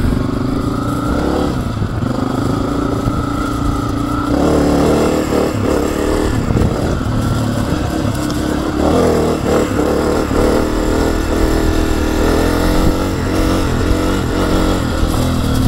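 Honda CRF250F dirt bike's single-cylinder four-stroke engine running under way, its pitch rising and falling as the throttle opens and closes, picked up by a camera mounted under the rider's helmet visor.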